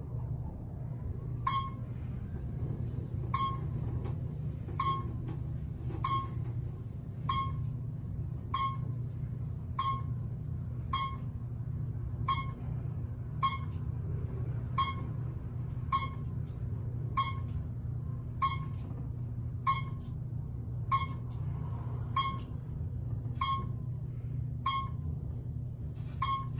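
Steady low hum of old elevator hoist motors, with a short, sharp electronic beep repeating evenly about every 1.2 seconds.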